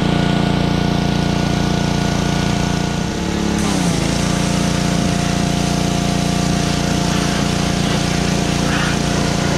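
Small gas-engine pressure washer running steadily under load, with the hiss of its water jet. The engine note dips briefly about three and a half seconds in, then settles back.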